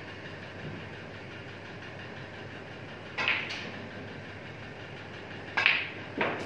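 Snooker balls clicking: two sharp knocks close together about halfway through, then two more near the end, the cue striking the cue ball and balls striking each other. A steady hum of room noise underneath.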